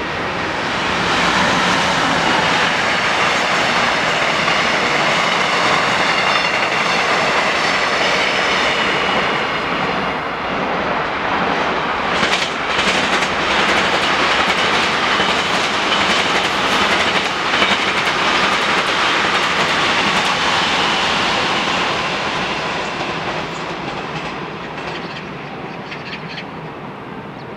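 A Korail electric locomotive's train passing, with a loud steady rumble of wheels on rail and a high whine over the first several seconds. Midway comes a run of clickety-clack as the wheels cross rail joints, and the sound then fades away near the end.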